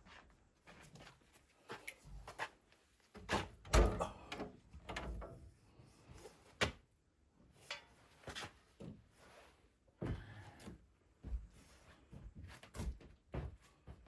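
Irregular knocks, thuds and clatter of things being handled, loudest in a cluster about three to five seconds in.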